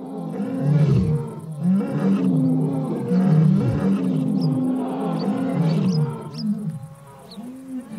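Lioness giving repeated low, urgent calls, urgent calls for help summoning the rest of the pride.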